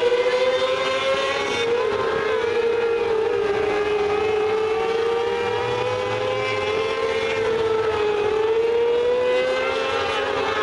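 Several mini sprint race cars running at speed around a dirt oval, their engines blending into one steady, high-pitched whine that wavers in pitch and dips briefly a couple of times.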